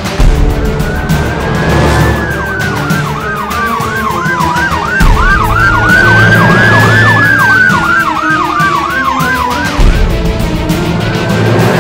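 Electronic emergency-vehicle siren, with a slow rising-and-falling wail and a fast yelp of about three sweeps a second sounding together. Background music plays underneath.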